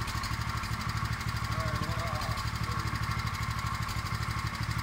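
Small engine running steadily at a constant speed with a rapid, even beat.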